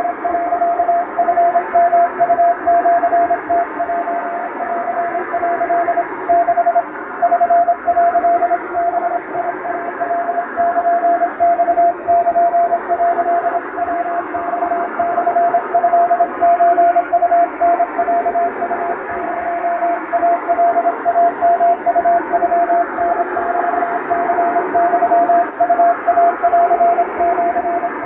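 Hand-keyed Japanese wabun Morse code: a single steady beep tone keyed on and off in quick dots and dashes, spelling out a telegram, over a continuous shortwave-style static hiss.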